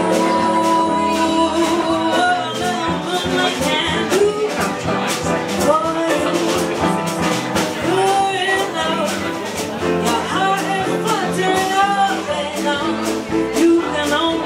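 Small jazz band playing live: a woman sings over guitar and double bass, with sustained horn chords for the first couple of seconds. A light, steady ticking keeps the beat.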